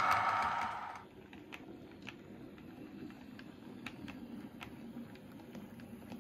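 OO gauge model train running on the layout's track: a quiet low rumble with scattered sharp clicks. A louder hissing sound cuts off about a second in.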